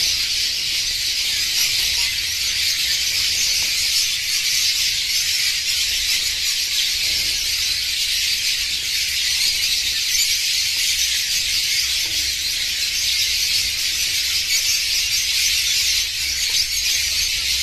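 A large flock of zebra finches calling all at once, their chirps merging into a dense, steady high chatter.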